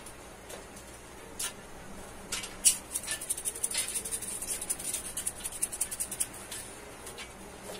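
Seasoning shaken from a container into a pot of water: a few single clicks, then a fast rattle of ticks from about two to six and a half seconds in.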